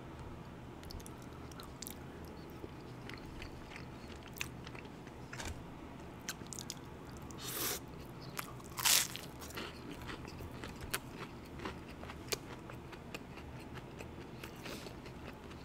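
Close-miked eating sounds: small wet mouth clicks and chewing, with two louder crunches about seven and a half and nine seconds in as a crispy breaded fried cutlet is bitten and chewed.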